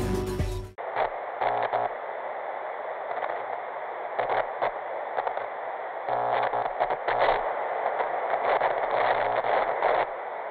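Background music cuts off under a second in and gives way to a steady TV-static hiss with crackles and brief flickers in loudness. The hiss sounds thin and band-limited, like an old television or radio.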